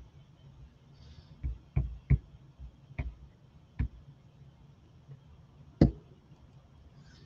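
About six sharp taps and knocks of hand crafting work on a tabletop, irregularly spaced over a few seconds, the last about six seconds in the loudest, as a plastic squeeze bottle is handled and set down.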